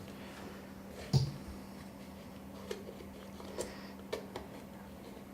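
Light clicks and knocks of the iced tea maker's plastic parts being handled while working the power cord free, with one sharper knock about a second in and a few faint ticks after, over a steady low hum.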